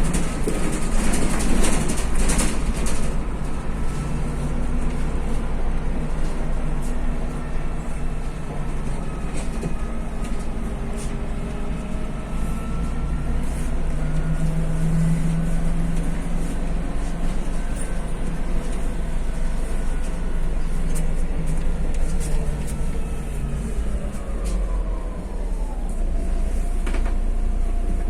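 Interior of a MAZ city bus under way: steady engine and road noise with a faint transmission whine whose pitch drifts and falls over the last few seconds as the bus slows.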